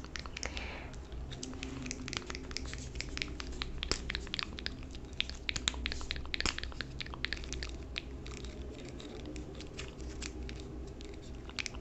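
Close-up ASMR mouth sounds: a dense, uneven run of soft clicks and wet smacks right at the microphone, over a low steady hum.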